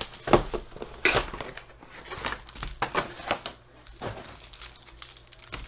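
Panini trading-card box being opened by hand and its foil-wrapped card packs taken out and handled: cardboard scraping and foil wrappers crinkling in a string of short, irregular rustles.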